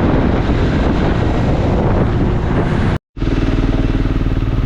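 Motorcycle engine running steadily while riding, mixed with rushing wind noise on the microphone. The sound cuts out completely for a moment about three seconds in, and the engine note comes back clearer afterwards.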